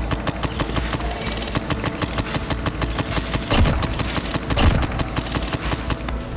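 Airsoft rifle firing on full auto, a rapid, even stream of snapping shots, with two louder cracks about three and a half and four and a half seconds in.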